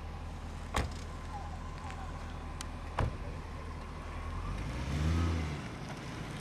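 BMW 540's V8 engine running steadily at low revs, with two sharp knocks about one and three seconds in. Around five seconds in, the engine revs up once and falls back.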